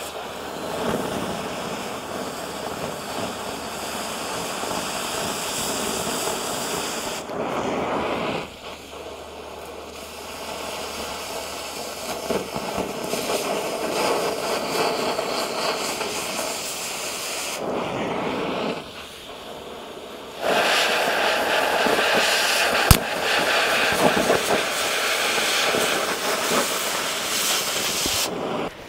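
Oxy-acetylene cutting torch hissing steadily as it cuts through steel pipe. The hiss falls to a softer level twice, about 8 and 18 seconds in, then comes back louder, with one sharp pop about 23 seconds in, and cuts off just before the end.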